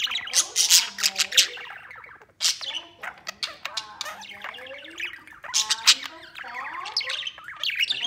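Budgerigar warbling: a rapid, continuous chatter of chirps, clicks and squawks mixed with short gliding whistles.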